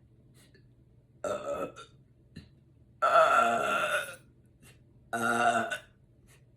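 A woman belching three times: a short burp about a second in, a long, loud belch around three seconds in, and another shorter belch a little past five seconds.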